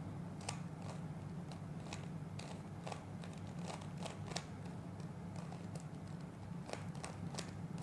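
Plastic Rubik's cube being turned by hand, its layers clicking irregularly a few times a second, over a steady low hum.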